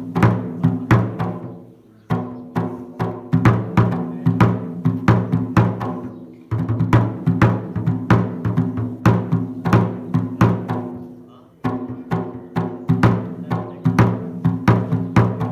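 Fast, loud drumming on deep-toned drums, struck many times a second. It comes in runs of about four to five seconds, and each run dies away before the next one starts suddenly.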